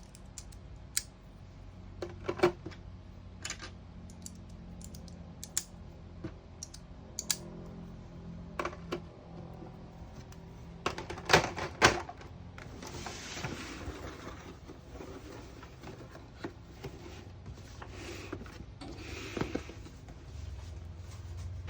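Irregular sharp taps on a hard surface setting off a Snap Circuits sound-activated circuit, whose speaker answers twice with a short, hissy machine-gun sound effect.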